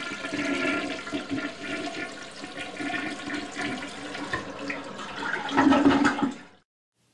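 Toilet flushing: water rushing and swirling in the bowl, swelling near the end before it cuts off suddenly.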